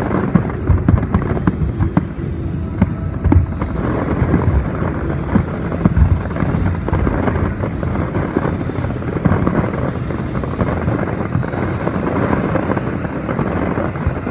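Fireworks going off: a rapid run of sharp bangs for the first six seconds or so, then a dense, continuous rumble of overlapping bursts.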